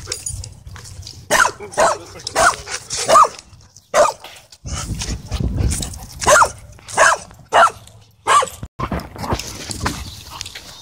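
Dogs barking during rough play-wrestling: short, sharp barks in two runs of several each, with a pause between them.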